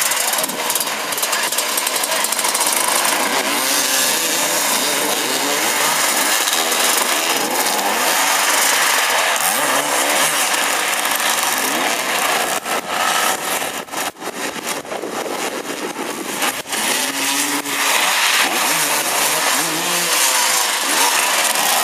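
Several motoball motorcycles revving up and down at once, their engine notes rising and falling over one another. The engines ease off for a few seconds a little past the middle, then pick up again.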